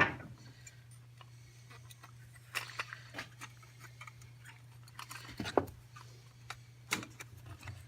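Scattered small metallic clicks and ticks as a hose clamp on a fuel pump and sending unit is worked by hand, over a steady low hum.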